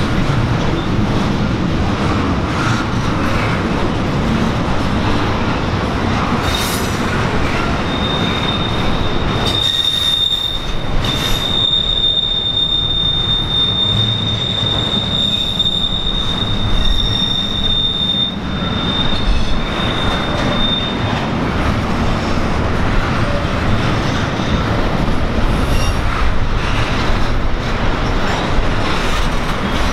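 Norfolk Southern intermodal freight train rolling past steadily. A high, steady wheel squeal comes in about a quarter of the way through and holds for some ten seconds before fading.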